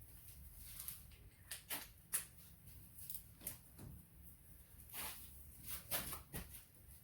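Hand tools clinking and scraping on engine bolts: a string of short, faint metal clicks at irregular spacing.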